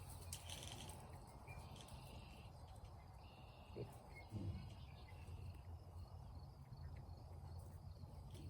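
Faint outdoor background with insects chirping and a steady low hum, and two short low grunts from the pigs about halfway through.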